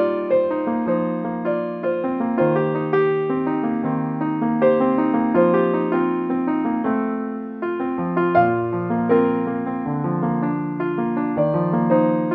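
Background piano music: a flowing run of notes with a steady pulse, over a sustained bass line.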